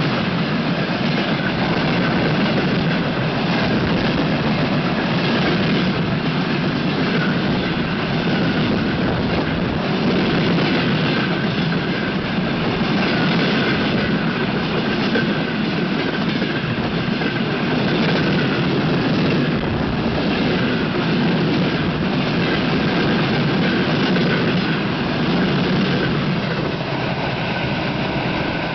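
A freight train of rail tank wagons passes close by at speed. A steady rushing roar of wheels on rail carries clattering over the rail joints. It eases off near the end as the last wagons go by.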